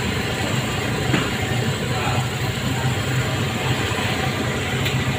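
Roti goreng dough sticks deep-frying in a large wok of hot oil: a steady sizzle over the continuous low roar of the gas burner, with a faint knock of the wire skimmer about a second in.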